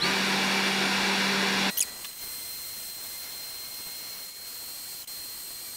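Lunyee 3018 Pro Ultra desktop CNC router running an engraving job, its 500-watt spindle spinning with a steady hiss and a thin high whine. For the first second and a half it is louder, with a low steady hum, then it drops suddenly to a quieter, steady whine.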